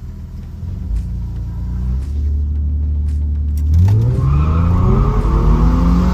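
Supercharged 3.8-litre L67 V6 of a Holden Commodore running steadily, then revving up about four seconds in, its pitch climbing and easing back off near the end.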